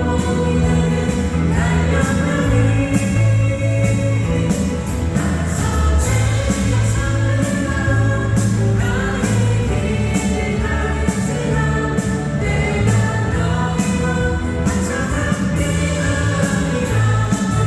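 Worship song sung by a group of voices over instrumental accompaniment, with held bass notes and a regular beat.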